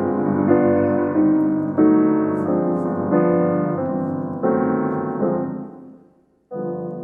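Piano alone playing slow, full chords, struck about once a second and left to ring. The sound dies away to a brief silence a little past six seconds in, then a new, softer chord begins.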